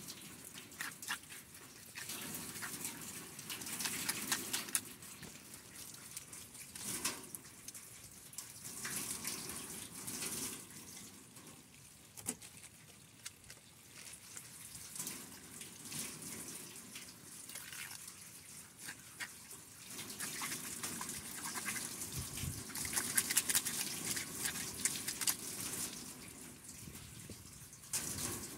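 Running water splashing: a thin stream pouring onto a corrugated metal sheet and over gutted trout held under it to rinse out the body cavity, with uneven splashes as the fish are moved.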